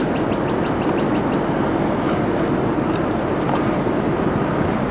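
Steady rushing wind and vehicle noise with a low hum, heard from inside a vehicle.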